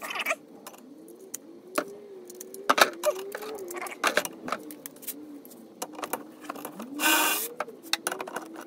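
Cordless ratchet whirring in one short burst about seven seconds in as it runs a bolt on the windshield cowl, after a few scattered clicks and clinks of tools and parts. A faint wavering tone sits underneath.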